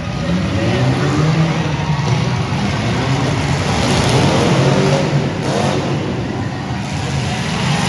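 Demolition derby cars running and revving their engines on a dirt arena. The engine note rises and falls in pitch as they accelerate.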